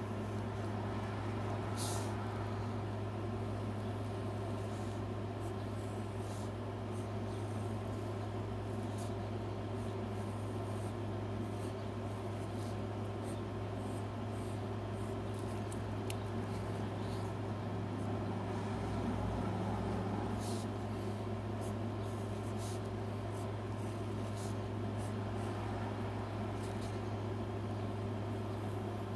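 A steady low hum, with faint light scratches of a mechanical pencil drawing on paper scattered through it.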